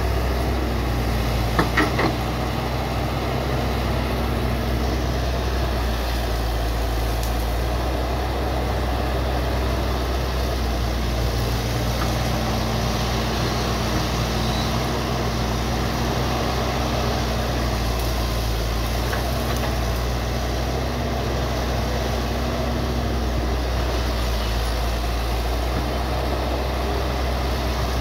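Hitachi crawler excavator's diesel engine running at a steady speed while the machine works its arm, with a few sharp clicks about two seconds in.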